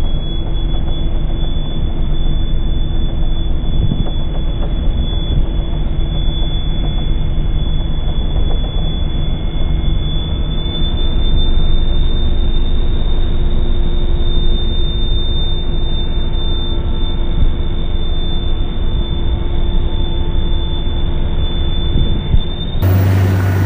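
Speedboat engine running at speed with the rush of its wake, slowed down with the slow-motion picture so it comes out as a deep, muffled drone with steady low tones. About a second before the end it turns suddenly sharper, with a strong low hum.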